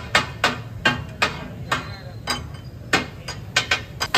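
Metal spatula clacking against a large metal tawa griddle as fish katakat is chopped on it: quick, uneven strikes at about three a second with a short ring after each, slowing briefly in the middle. A steady low rumble runs underneath.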